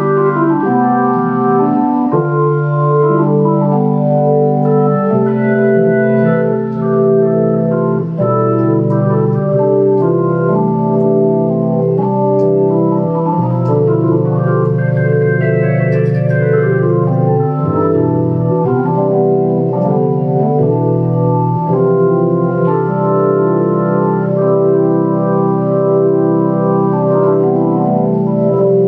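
Hammond T-series home organ with a built-in Leslie speaker played in sustained chords, the upper notes changing over long-held bass notes, with a quick run of notes rising and falling about halfway through.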